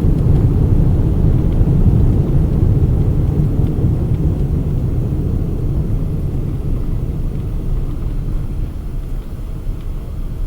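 Low, noisy rumble of a Boeing 777-200 airliner on the ground after landing, easing off gradually as it slows.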